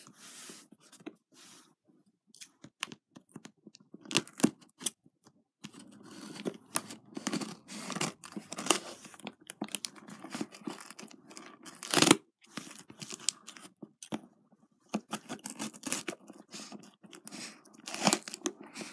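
Scissors cutting along brown packing tape on a cardboard box, with tape tearing and crinkling and the box knocking as it is handled. A sharp knock about twelve seconds in is the loudest sound.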